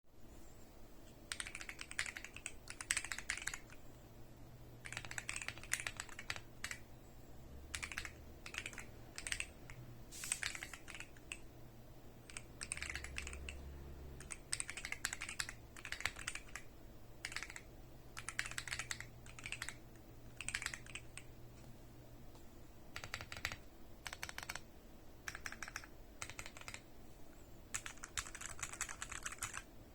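Typing on a Keychron Q1 aluminium-cased mechanical keyboard: rapid runs of key clicks in bursts of a second or two, broken by short pauses.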